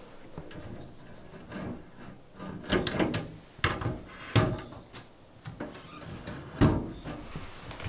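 A metal box being handled and shifted against a wooden plank wall: a handful of sharp knocks and clatters, the loudest near the end.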